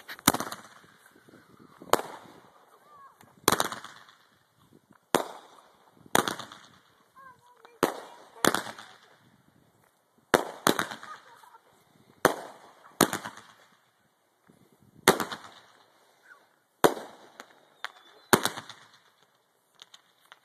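Consumer fireworks going off in a long series of sharp bangs, about one every second or two, each with a short echoing tail.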